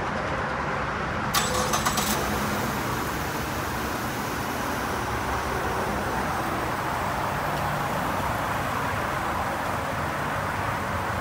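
Steady motor-vehicle noise, with a quick run of about five sharp clicks about a second and a half in.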